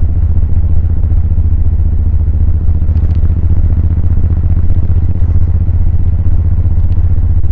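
Suzuki VL1500 Intruder's V-twin running at a steady cruise, its exhaust note half buried under loud, steady wind rush over the microphone of a bike with little wind protection.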